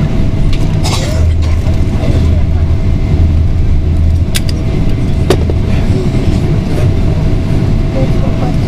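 Cabin noise of a Boeing 777-200 rolling on the ground after landing: a loud steady low rumble with a faint steady whine, and two sharp clicks around the middle.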